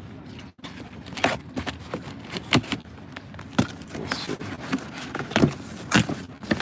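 Cardboard box and packaging being handled and opened by hand: a run of irregular crinkles, taps and rustles.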